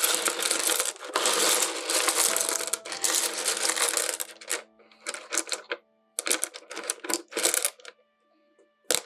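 Rough potch opal pieces clattering and clinking against each other as they are stirred and shuffled by hand, in several bursts with short pauses between them.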